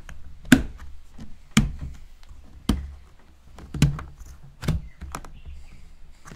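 Snap-on plastic lid of a fermentation bucket being pressed down around the rim, clicking into place with six sharp snaps about a second apart as the fermenter is sealed.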